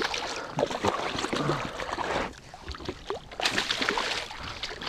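A hooked redfish thrashing at the surface beside a kayak: water splashing in two bursts, the first over the opening two seconds and another about three and a half seconds in, with scattered clicks and knocks.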